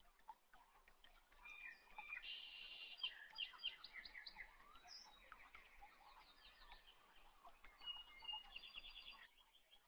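Faint birds chirping, with short repeated trills and quick rising and falling notes.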